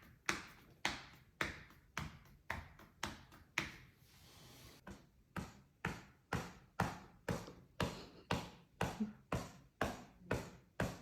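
Sharp percussive taps struck on a patient's body during chiropractic or massage treatment, in a steady rhythm of about two a second. They pause briefly about four seconds in, then resume slightly faster.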